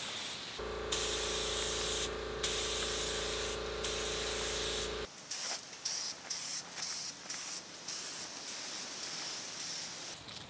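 Compressed-air paint spray gun hissing as it lays on white automotive paint, starting and stopping with each trigger pull, in short bursts that come faster in the second half. A steady hum runs under the hiss for the first few seconds, then stops.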